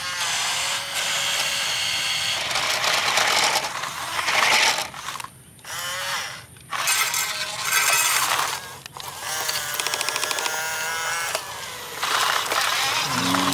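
Small electric gear motors of radio-controlled construction models, a wheel loader and an excavator, whirring and whining as they drive and move their arms, starting and stopping in spells with short pauses.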